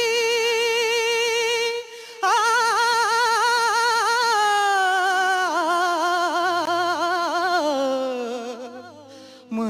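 A solo singer holds a long high note, breaks off about two seconds in, then sings a long wavering melismatic run that slides down in pitch and fades near the end. It is a sustained passage of a Tamil devotional song to Murugan.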